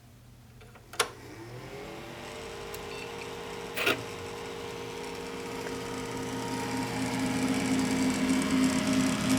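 Custom desktop PC starting up: a click about a second in, then its fans spin up, rising in pitch and settling into a steady whir with a hum, a second click near four seconds, and the whir growing louder toward the end.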